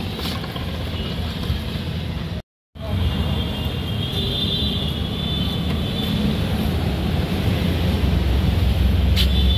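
Steady rumble of road traffic and vehicle engines, with faint high tones coming in from about four seconds in. The sound cuts out completely for a moment about two and a half seconds in.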